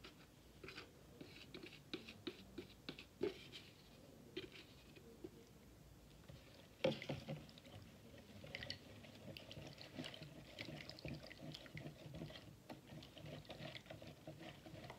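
Spatula scraping and tapping against a plastic measuring jug while liquid is poured out of it, then stirring a thick lotion mixture in a plastic jug: soft scattered clicks and scrapes, busier from about seven seconds in after one sharper knock.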